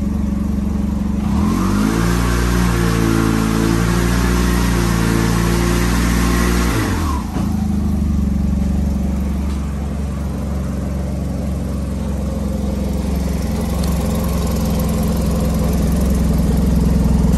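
SYM TL500 maxi-scooter's parallel-twin engine running through a full aftermarket exhaust with an Akrapovic end can and a welded-in exhaust valve. It is revved up about a second and a half in, held at high revs for about five seconds, then drops suddenly back to a steady idle.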